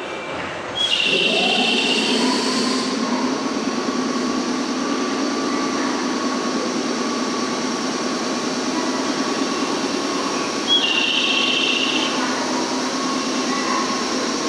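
Electric local train at the station platform. About a second in, a whine rises in pitch and then holds steady over a steady mechanical hum, with a short high-pitched tone heard twice.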